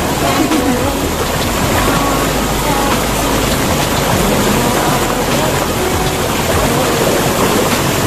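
Small waterfall pouring over boulders into a rock pool: a steady, loud rush of water.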